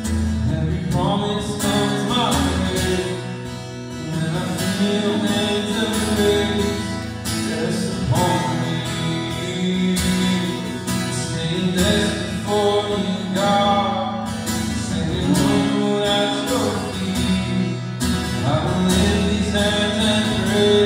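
A man singing a worship song, accompanied by a strummed acoustic guitar.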